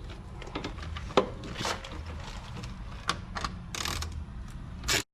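Hand tool and metal parts being handled: scattered clicks and knocks, a sharp tick about a second in, and a few short scraping rustles as a socket tool is worked on the fasteners holding the rear camera.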